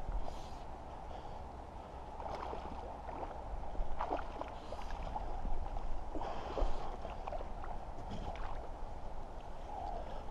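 A hooked trout splashing and swirling at the lake surface as it is played on a fly rod, several separate splashes over a steady low rumble.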